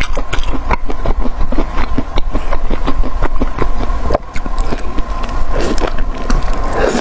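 Close-miked eating: chewing with many quick, irregular crunching and clicking mouth sounds over a steady low hum.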